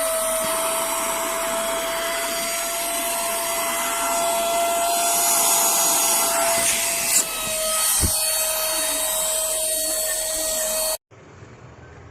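Cordless handheld vacuum cleaner running: a steady high motor whine over the rush of air, with a brief knock about eight seconds in. It cuts off suddenly near the end.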